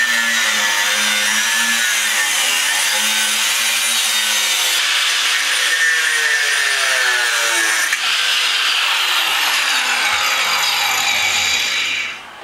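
Angle grinder with a cut-off wheel cutting through a thick-walled steel roll-cage tube: a loud, continuous grinding whine whose pitch dips and falls several times, stopping just before the end.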